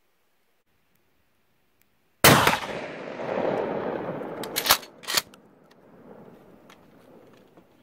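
A single 12-gauge shotgun blast from a Remington 870 pump-action firing a full-power 2¾-inch Winchester slug, about two seconds in, with a long rolling echo off the valley sides. About two and a half seconds later come two sharp clacks half a second apart: the pump being racked back and forward to chamber the next shell.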